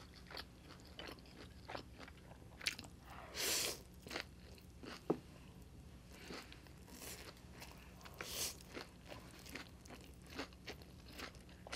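Close-miked eating of stir-fried egg noodles: quiet wet chewing and mouth clicks throughout, with a few short slurps as mouthfuls of noodles are drawn in.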